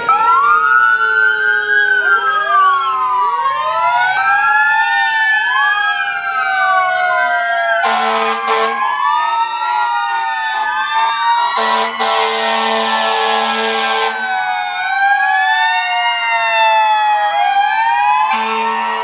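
Several fire engine and police sirens wailing and yelping at once, their rising and falling pitches overlapping. Fire truck air horns blast twice briefly about eight seconds in, hold one long blast for about two seconds near the middle, and sound again near the end.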